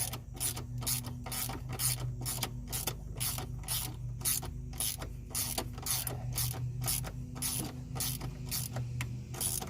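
Ratchet wrench clicking in steady, even strokes, a little over two clicks a second, as a bolt is run down by hand.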